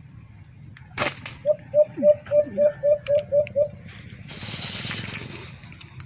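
A sharp slingshot snap about a second in, then a run of about ten short, evenly spaced cooing notes of an alimukon dove call, then a second of rustling.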